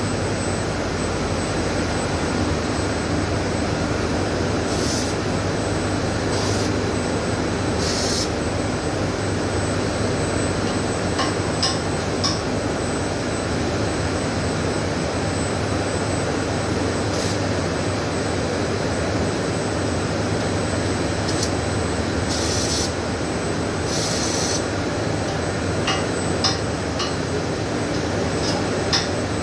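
Steady machine drone with brief hissing sizzles every few seconds and a few sharp clicks, from arc welding on steelwork. A thin, high, steady whine runs underneath.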